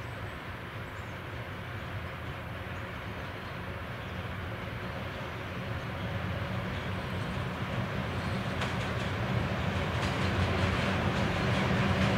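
ET22 six-axle electric freight locomotive hauling a freight train as it approaches, growing steadily louder, with a low steady hum. Sharp clicks of wheels over the rails come in during the second half.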